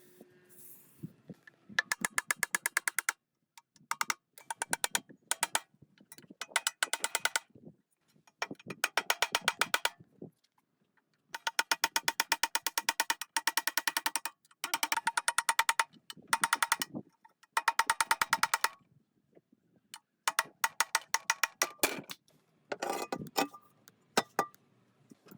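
Rapid mechanical clicking, about a dozen even clicks a second, coming in bursts of one to three seconds with short pauses between.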